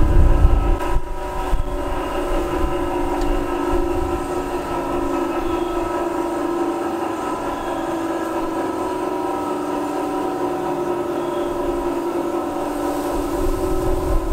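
GE diesel-electric freight locomotives idling, a steady engine hum with a constant low drone. Wind buffets the microphone near the start and again near the end.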